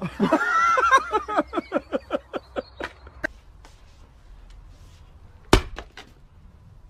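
A person laughing hard in a quick run of 'ha' bursts that fade out about three seconds in. About five and a half seconds in comes a single sharp knock as a sledgehammer strikes a log.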